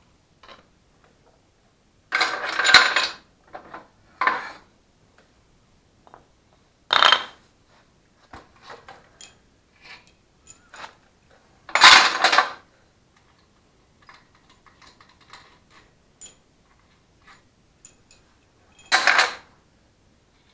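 Steel main-cap bolts being loosened and pulled from an LS V8 short block, hand tools and bolts clattering metal on metal. There are five loud bursts of clatter, each about a second long, with light metallic clinks and ticks between them.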